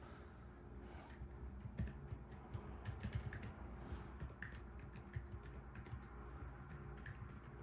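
Fast, irregular typing on a Keyball44 split keyboard with Yushakobo Fairy silent linear switches, dampened with Poron foam in the PCB, plate and case and with silencing O-rings. The keystrokes sound muffled and low, with little high click.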